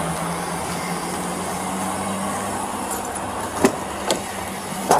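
Car engine idling with a steady hum, and three sharp clicks or knocks in the last second and a half.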